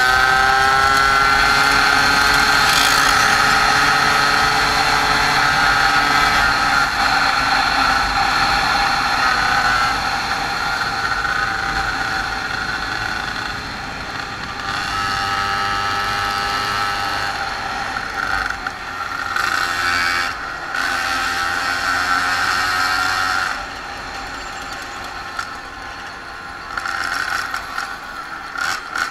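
Small two-stroke moped engines running on the road, the nearest one heard close up from the rider's own machine. The engine note holds steady at first, eases off about a third of the way in, and drops lower near the end with the throttle going on and off.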